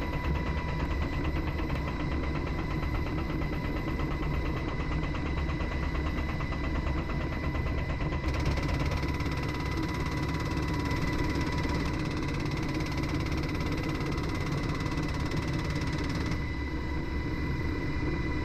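Helicopter in flight, heard from inside the cabin with the door open: steady rotor and turbine noise with a constant high whine and a fast flutter. A rush of hiss grows stronger about eight seconds in and falls back near the end.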